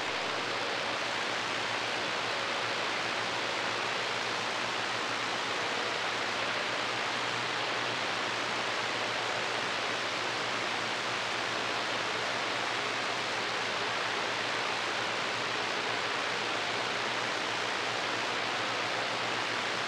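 Steady hiss of static from a CB radio receiver with the squelch open on an empty channel, heard between skip transmissions.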